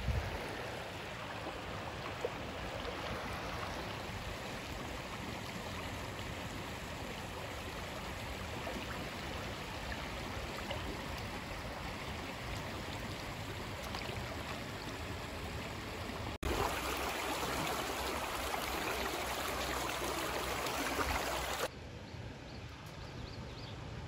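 Shallow creek water running over rocks: a steady rushing noise, louder for about five seconds after a sudden cut some sixteen seconds in, then quieter near the end.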